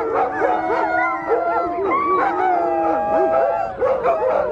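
A pack of stray dogs howling and yelping together, several voices overlapping, some howls drawn out for a second or more.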